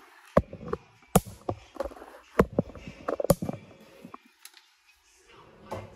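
Kitchen items being handled: a string of sharp knocks and clicks over about four seconds, then it goes quiet.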